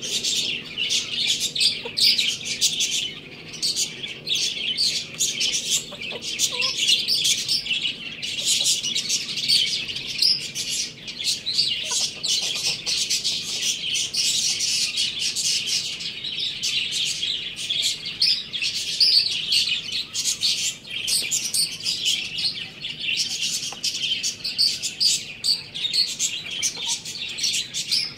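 A flock of small birds chirping and twittering without a break, many high-pitched overlapping calls.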